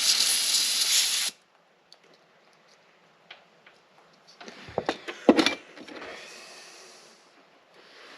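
Aerosol brake cleaner spraying in a steady hiss, cutting off about a second in, to clean a sticking switch on the furnace's combustion fan motor that is thought to be dirty. A few sharp knocks and clicks of handling follow near the middle, then a fainter hiss.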